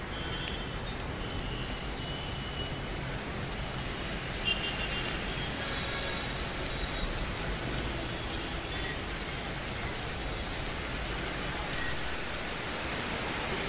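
Steady hiss of city road traffic with a few short car horn toots, giving way to the hiss of heavy rain near the end.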